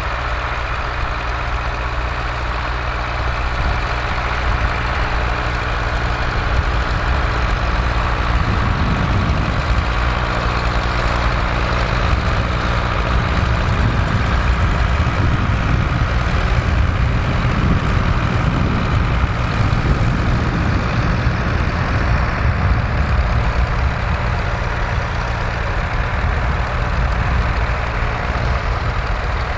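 Massey Ferguson tractor engine running steadily, a continuous low engine note.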